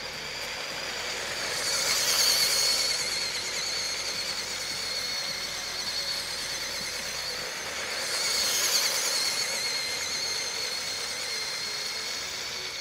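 Electric drive motor and gearing of a Mould King 13152 building-block RC racing truck: a high, wavering whine that swells louder twice, about two seconds in and again around eight and a half seconds.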